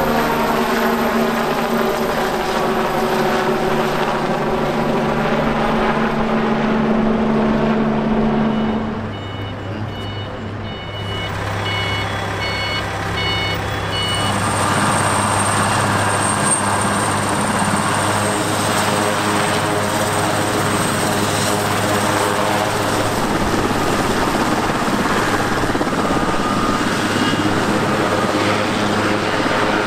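Helicopter flying away, its turbine and rotor sound falling in pitch as it recedes. After a cut there is a quieter stretch with a few short high beeps, then a large twin-turbine helicopter runs on the ground with its rotors turning, steady and loud, before lifting off.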